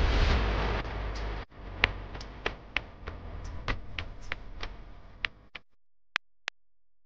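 A rough rumbling noise for about a second and a half, then a run of light, irregular clicks and taps over a fainter hiss. It ends with two sharp clicks close together near the end.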